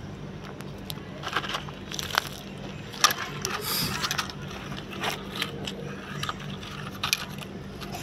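Plastic toy excavator pushed by hand over gravel and dirt: irregular crunching and scraping, with small clicks of stones and plastic, the sharpest about three seconds in.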